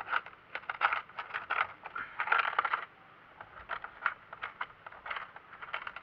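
A quick, irregular run of small sharp clinks and clicks, thickest a little past two seconds in, then sparser.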